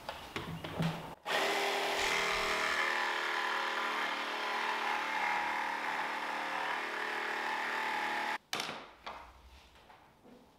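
Handheld power drill running steadily as it bores into plywood, starting about a second in and stopping abruptly after some seven seconds.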